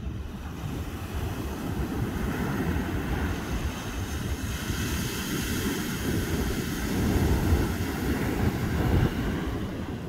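Ocean surf breaking and washing up a sandy beach, its hiss swelling about halfway through and loudest a few seconds later, with wind buffeting the microphone.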